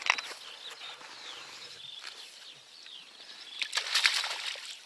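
A hooked bream thrashing and splashing at the surface as it is scooped into a landing net, loudest about four seconds in, after a sharp knock right at the start. Small birds chirp throughout.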